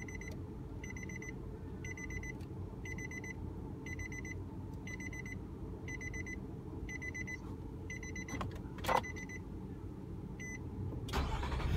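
Nissan Frontier's in-cabin warning chime repeating about once a second, a short high tone each time, as it does with the key in the ignition and the driver's door open. It stops about eight and a half seconds in, with a sharp click about nine seconds in and a steady low rumble underneath.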